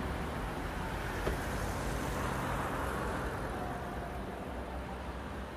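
Steady outdoor city ambience: a constant rumble of distant road traffic, with one faint tick about a second in.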